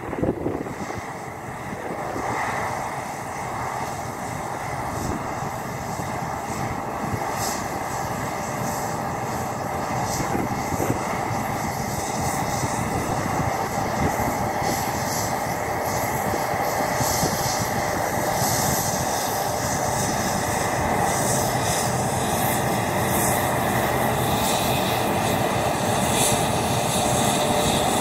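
Claas Lexion 580 combine harvester running as it cuts wheat: a steady engine drone that grows louder as the combine draws nearer.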